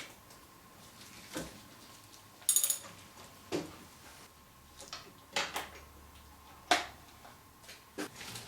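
Scattered clicks and knocks of metal tools and brake-line fittings being handled, with one sharp ringing metallic clink about two and a half seconds in.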